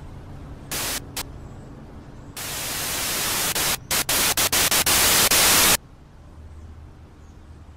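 Bursts of TV-style static hiss: two short bursts about a second in, then a long burst that grows louder and stutters on and off before cutting off sharply. A low hum runs underneath.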